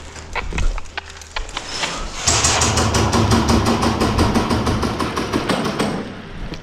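Airsoft electric gun firing a long full-auto burst of rapid, evenly spaced shots over the whir of its motor and gearbox. It starts about two seconds in and stops about a second before the end, after a few scattered clicks.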